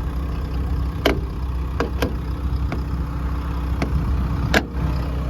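A JCB JS160 excavator's diesel engine idles steadily. Several sharp clicks and knocks sound over it, the loudest about four and a half seconds in.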